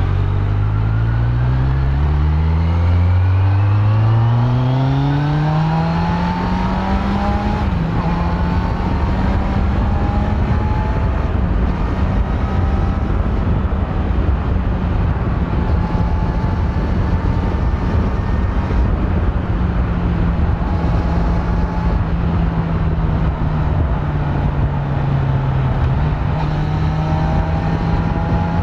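Kawasaki Z900's inline-four engine on its stock exhaust accelerating hard, its pitch climbing for about seven seconds. It drops once at an upshift, then holds steady at cruising speed over a loud rushing noise, easing off briefly and picking up again near the end.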